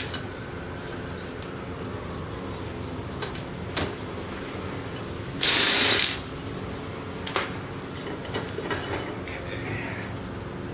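Cordless electric ratchet running a valve-cover bolt out of a small Kohler engine in one short burst about five and a half seconds in. Scattered metal clicks of the tool and bolts come before and after it, over a steady low hum.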